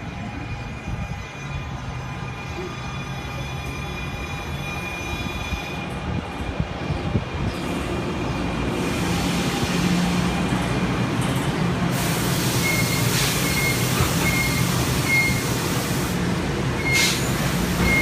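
NJ Transit Arrow III electric multiple unit with AC traction motors pulling in along the platform and braking to a stop, with squealing wheels and brakes. About twelve seconds in a long hiss sets in, with a string of short, evenly spaced high beeps.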